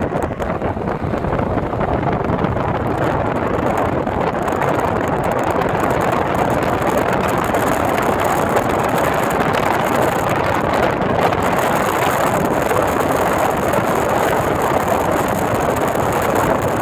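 Steady road and wind noise of a car driving at speed.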